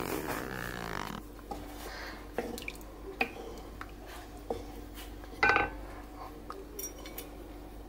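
Wooden spatula stirring broth with meat and carrots in a kazan: liquid sloshing and dripping, with scattered knocks of the spatula against the pot, the loudest a little past halfway.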